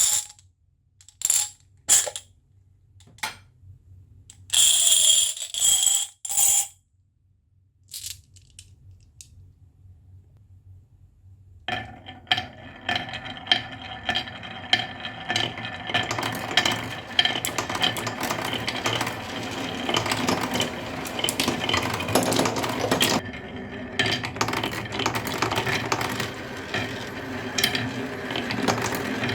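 Small hard objects clinking: a few separate sharp clicks and clacks, then steady continuous rattling and clattering with a metallic ring, starting about twelve seconds in.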